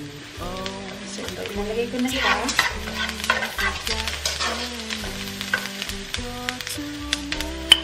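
Chopped onion and garlic sizzling in oil in a nonstick frying pan while a slotted spatula stirs them, with frequent sharp clicks and scrapes of the spatula against the pan.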